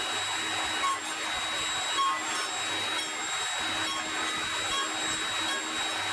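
Table saw running steadily with no cut under way: a constant motor hum with a steady high whine.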